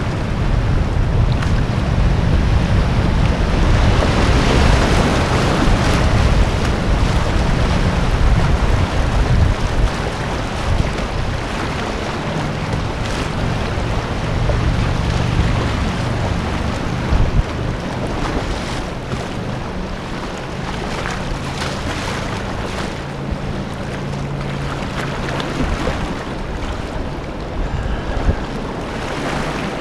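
River water rushing and churning over small rapids around a whitewater kayak, with occasional short splashes and the low rumble of wind on the microphone. Louder for the first ten seconds or so, then a little quieter.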